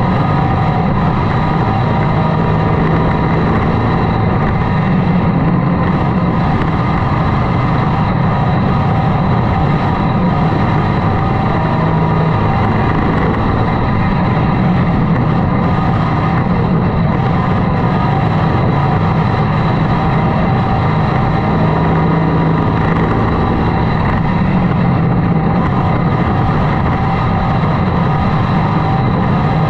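Hobby stock dirt-track race car engine running hard at racing speed, heard from inside the cockpit. A loud, steady engine note that rises and dips slightly in pitch through the laps.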